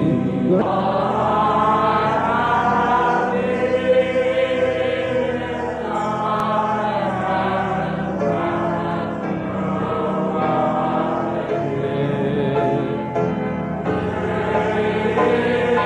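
Many voices singing together in long held notes that slowly rise and fall, a church congregation singing during the service.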